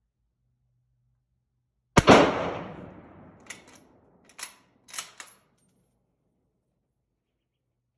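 A single rifle shot from a 1940 K98 Mauser bolt-action rifle in 8mm Mauser, about two seconds in, echoing and dying away over a second or two under the covered firing line. It is followed by four quick metallic clacks of the bolt being worked to eject the spent case and chamber the next round.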